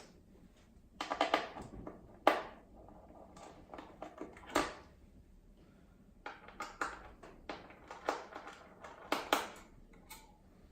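Irregular sharp plastic clicks and short rattly clusters as cable connectors are worked loose and unplugged from the power supply inside a mid-2011 27-inch iMac, busiest in the second half.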